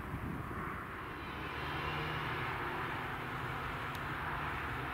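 Steady distant engine drone over outdoor background noise, with a low hum joining about a second and a half in. A single sharp click comes near the end.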